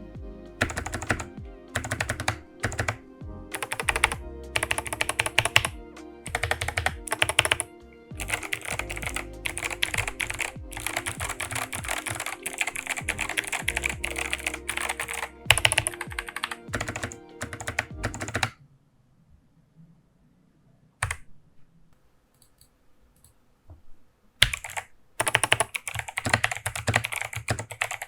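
Fast typing on a mechanical keyboard with Kailh Box White V2 clicky switches, a quick run of key clicks and clacks over background music. Partway through, the typing and music stop. A couple of single key presses follow, then typing starts again near the end.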